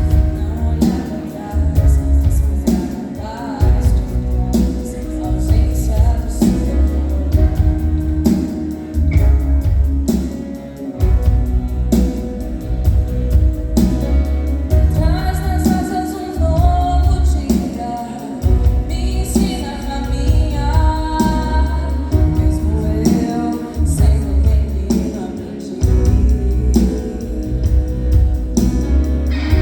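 A live band playing a song, with a female vocalist singing lead over drums and percussion that keep a steady beat, and a bass line.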